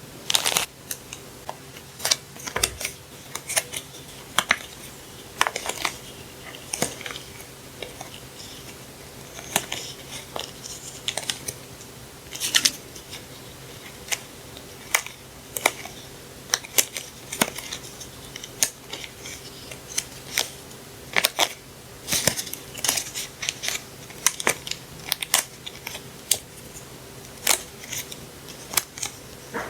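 Paper stationery and its packaging being unpacked and handled by hand: scattered sharp clicks, taps and short crinkles of paper and plastic, with a faint steady hum underneath.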